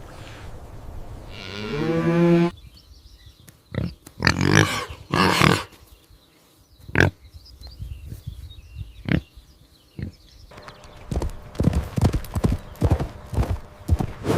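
A cow mooing: one low call that ends about two and a half seconds in. Then a horse: two loud, breathy blasts, a few single knocks, and from about ten seconds in a quick run of hoof clops.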